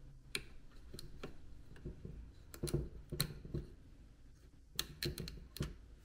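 Irregular small plastic clicks and taps from wiring and a plug-in connector being handled inside the opened base of an Instant Pot, a few coming in quick groups, the loudest around the middle.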